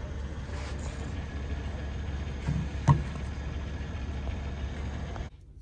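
Steady low rumble of an idling vehicle engine heard inside the truck cab, with one sharp click about three seconds in. The rumble cuts off suddenly near the end.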